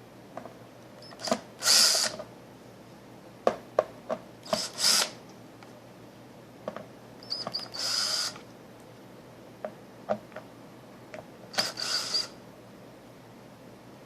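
Power drill-driver run in four short bursts, backing screws out of a speaker cabinet's back plate, with short clicks and knocks of handling in between.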